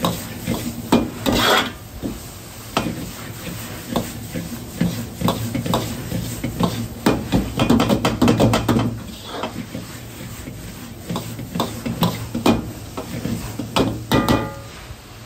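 Metal ladle clanking and scraping against a wok during stir-frying, in irregular strokes with a quick run of them near the middle, over a steady low hum from the gas wok burner.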